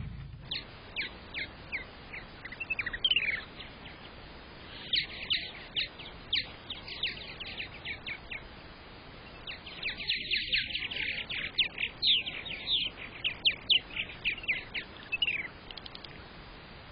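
Purple martins calling: rapid runs of short, falling chirps, sparse at first and then a busier stretch in the second half that stops shortly before the end.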